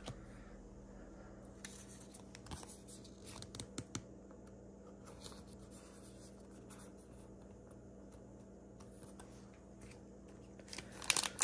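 Faint handling of trading cards: soft scratches and taps as cards are slid into a plastic sleeve and laid on a wooden table, over a steady faint hum. Louder rustling and crinkling starts near the end.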